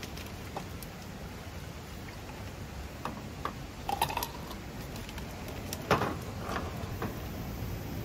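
Whiskey poured from a bottle over ice in a paper cup, with a few light clicks and knocks of the bottle and ice cubes being handled; the sharpest knock comes about six seconds in, over a steady low background noise.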